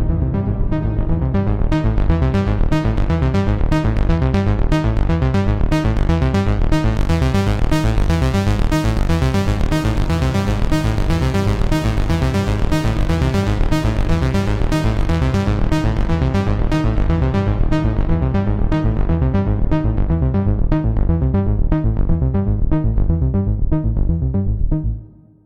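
Waldorf Pulse 2 analog monophonic synthesizer playing a fast repeating sequenced pattern of notes, heard dry straight from the synth. The tone brightens over the first couple of seconds, stays bright, and fades out near the end.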